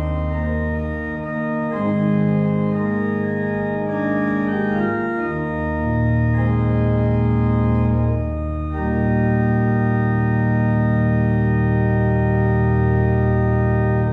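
Organ playing the closing chords of a hymn after the last sung verse: a few held chords, then a final chord sustained for about five seconds before it is released.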